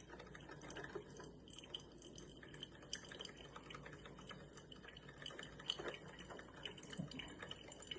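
Drip coffee maker brewing: freshly brewed coffee dripping from the filter basket into the carafe, with faint, irregular drips and ticks.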